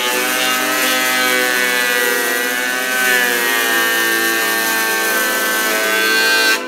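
Benchtop thickness planer running and cutting a board as it feeds through: a loud, steady motor whine over the cutterhead's noise, its pitch sagging slightly for a moment under the load of the cut.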